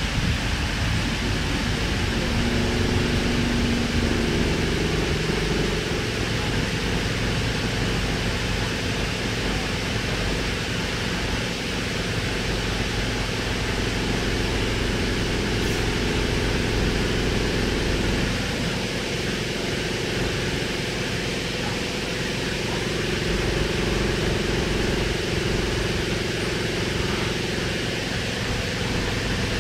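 Interior noise of a Sydney K-set double-deck electric train: a low rumble with a shifting whine as it draws into a platform and slows to a stop, then a steady hiss and hum while it stands, the low rumble easing off a little past halfway.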